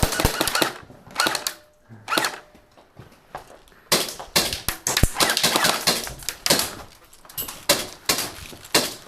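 Airsoft guns firing in several rapid bursts of sharp clicking shots, with a long dense run about four seconds in.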